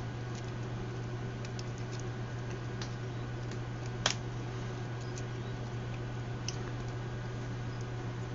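A few scattered light clicks and taps over a steady low electrical hum, with one sharper click about four seconds in.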